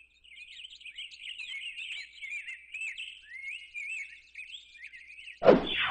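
Small birds chirping and twittering: many quick, high, wavering calls. Near the end a loud, sudden sweeping sound cuts in.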